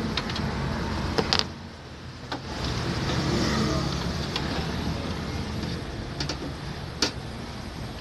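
Screwdriver working screws on a microwave oven's metal chassis to free its control board: a few sharp metallic clicks, the loudest about seven seconds in, over a steady low hum.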